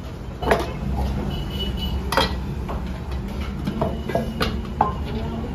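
Small aluminium bowls clanking and clinking as they are set down and stacked on a wooden counter, with several sharp, uneven knocks, some of them briefly ringing. A low steady rumble runs underneath.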